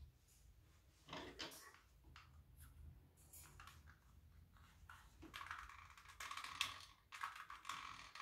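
Near silence with faint handling sounds: light clicks and soft rustling as a hot glue gun and cotton balls are handled.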